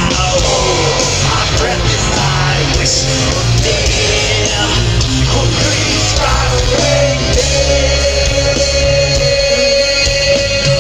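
Live heavy metal band playing, with electric guitars, bass and drums and a singing voice; a long note is held from about two-thirds of the way through.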